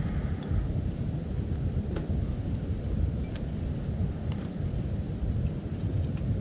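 Wood fire burning in a small titanium wood stove: a steady low rumble with a few sharp crackles and pops.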